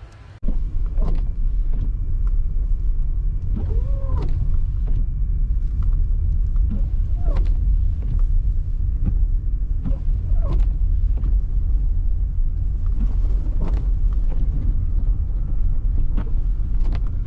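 Car driving on a snow-covered road: a steady low rumble of engine and tyres that starts abruptly about half a second in, with a short click and squeak recurring about every three seconds.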